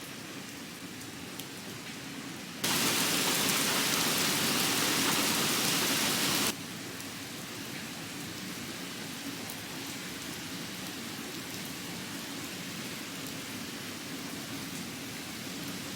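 Steady rain falling. About three seconds in, a much louder hiss reaching high up cuts in abruptly, lasts about four seconds, and cuts out as suddenly, leaving the steady rain.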